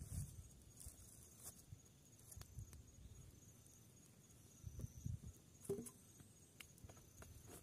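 Quiet campfire crackling, with a few sharp pops spread out over several seconds, over a faint steady chirring of night insects.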